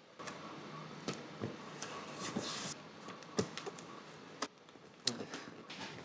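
Handling noises from a cardboard shipping box being moved: scattered light knocks and clicks, with a short rustle about two and a half seconds in.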